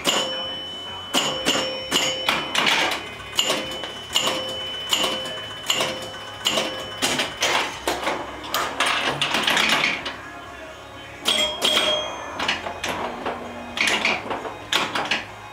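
1973 Gottlieb Jungle King electro-mechanical pinball machine in play: a rapid clatter of flippers, bumpers, ball and relays. A chime rings over and over for the first seven seconds or so while the score reels advance by thousands, and rings again briefly near the end.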